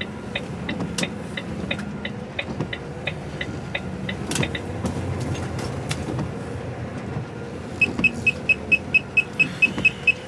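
HGV cab interior with engine and road noise under a rapid high ticking, about four ticks a second, that stops a few seconds in. Near the end the truck's proximity sensors start beeping fast, about five beeps a second, warning of an obstacle close alongside the cab.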